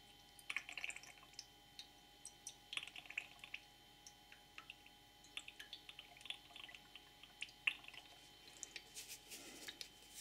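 Liquid fuel squirted from a plastic squeeze bottle into a small stainless steel cup stove: faint, irregular drips and little splashes, coming in spurts.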